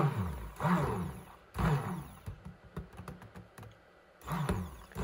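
Handheld immersion blender run in several short pulses in a glass measuring cup of thickening lotion. Each burst whirs up and winds down, falling in pitch, with clicks and small ticks between pulses. This is the blending that emulsifies the oil and water phases as the lotion cools.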